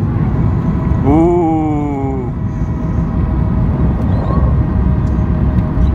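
Steady roar of airflow and CFM56 engines heard inside the cabin of a Boeing 737-800 on approach with flaps extending. About a second in, a brief pitched sound rises and then slowly falls over about a second.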